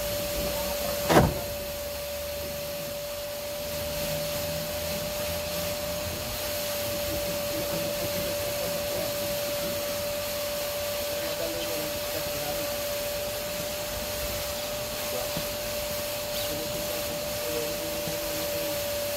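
Vacuum cleaner running steadily with a high whine as it cleans inside a car. There is one sharp knock about a second in.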